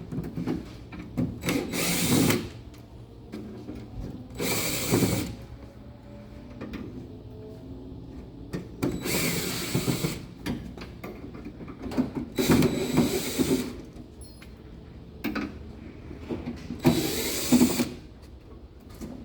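Handheld power driver running in six short bursts of about a second each, with pauses between: backing out the screws that hold a 1968 Impala's door window sweep.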